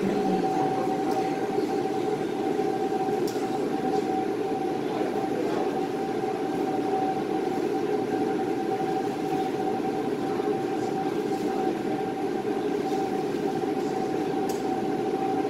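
Steady machine hum with a constant mid-pitched tone running unchanged throughout, with a few faint clicks.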